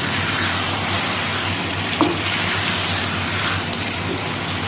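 Okra and beef curry sizzling in a non-stick wok as it is stirred with a spatula, with a steady frying hiss and one short knock of the spatula against the pan about two seconds in.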